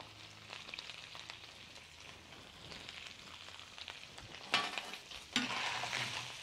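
Small pork rib pieces sizzling in hot oil in an earthenware cazuela as they brown. About four and a half seconds in, a spatula starts stirring and turning the meat, with a scrape against the pot, and the sizzling gets louder.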